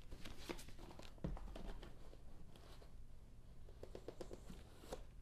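Cardboard retail box and paper packaging being handled as the lid is lifted off: faint rustling and light taps, with one soft thump about a second in.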